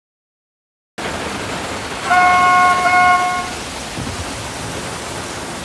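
Steady rain begins about a second in, then a car horn sounds, held for about a second and a half with a brief stutter, over the rain.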